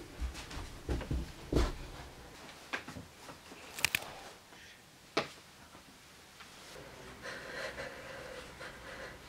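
A few soft thumps and clicks, with a sharp double click about four seconds in. Then, from about seven seconds, a young woman crying faintly.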